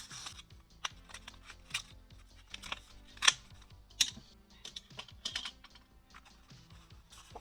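Hands unpacking photocard mail: irregular crisp taps, clicks and crinkles of plastic sleeves, card and packaging being handled, the sharpest about three and four seconds in. Soft background music plays underneath.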